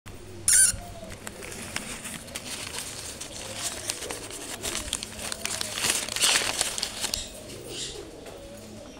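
Crackling and crinkling clicks while a blue-and-yellow macaw is hand-fed, densest around the middle. About half a second in comes one short, loud, high-pitched squawk.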